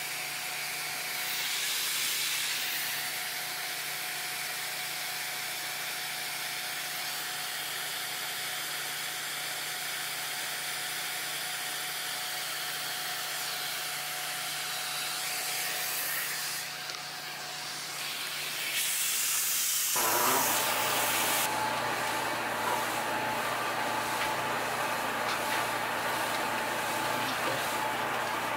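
Ridgid 16-gallon, 6.5-horsepower wet/dry shop vacuum running steadily, its suction hissing through a long hose with a faint whine. About two-thirds of the way in, the sound turns abruptly fuller, with a lower motor hum.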